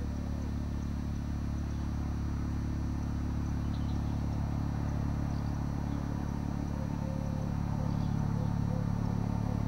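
Helicopter overhead: a steady low rotor and engine drone that grows slowly louder toward the end as the aircraft comes closer.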